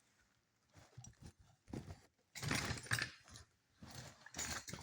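Several short, irregular bursts of handling noise, rustling and knocking, as an outlet tester is handled at the outlet.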